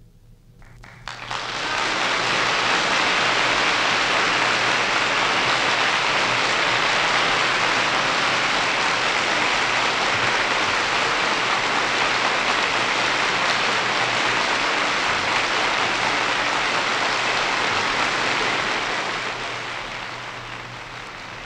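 Studio audience applauding after the orchestra's final chord. The clapping starts with a few claps about a second in, swells to a dense, steady applause, and tapers off near the end.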